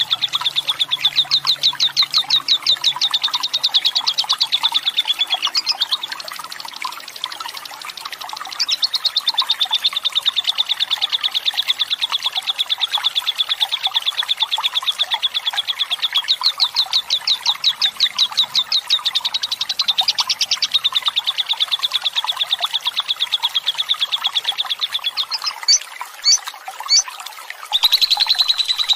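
Fighter lovebird giving its long 'ngekek' song: a rapid, rattling trill of high notes repeated many times a second, held for many seconds at a stretch. It breaks off briefly about six seconds in and turns to a few separate chirps near the end.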